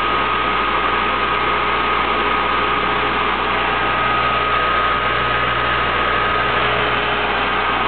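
Siemens 6.1 hp, 460 V three-phase induction motor running unloaded in rotoverter mode on a single-phase supply through a capacitor: a steady electric hum and whir with a constant high-pitched whine.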